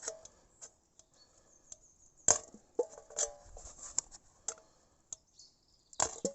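Church-key can opener punching triangular holes into the side of a large metal catering tin near its base: irregular sharp clicks and crunches, some ringing briefly.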